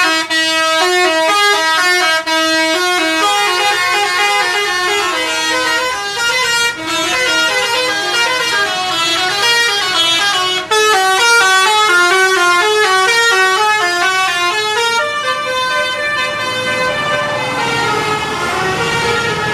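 Indonesian 'telolet basuri' musical bus horn playing a tune: a fast run of pitched horn notes stepping up and down several times a second, broken by a few very short gaps. Near the end the notes slow into longer held tones.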